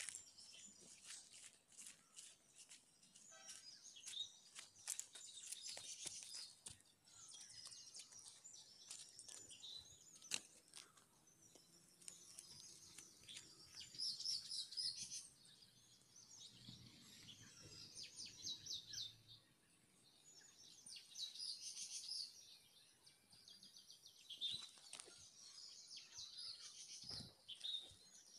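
Faint birds chirping and trilling on and off, several calls overlapping, with occasional sharp clicks.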